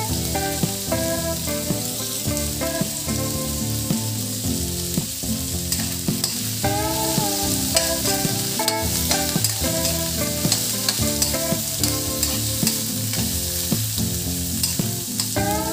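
Chopped chayote, onion, garlic, bell pepper and celery sizzling in hot oil in a wok, with a metal spatula clicking and scraping against the pan as they are stirred. A melodic music track plays underneath.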